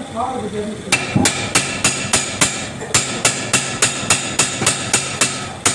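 Hammer striking a steel rotavator shaft in a steady run of blows, about three to four a second, each with a short metallic ring, starting about a second in.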